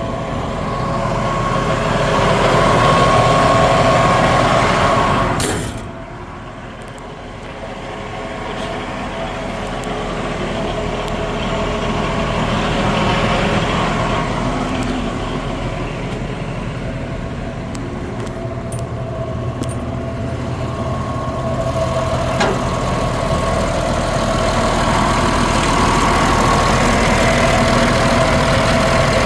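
John Deere 350D LC excavator's PowerTech 9.0 L six-cylinder turbo diesel running steadily. The sound drops suddenly about six seconds in, then builds back up over the following seconds.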